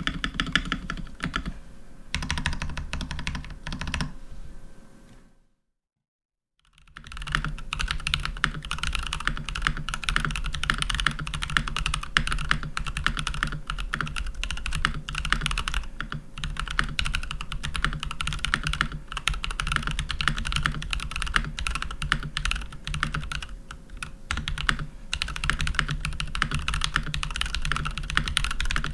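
Continuous typing on a Keychron V1 mechanical keyboard with stock Jwick T1 tactile switches, foam and silicone dampening, and TX stabilizers: a dense stream of key clicks and clacks. About five seconds in the typing fades out, then there is about a second of total silence before it starts again.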